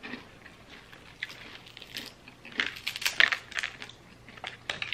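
Close-up chewing of crispy fried chicken: a run of irregular crisp crunches, loudest and thickest a little past the middle.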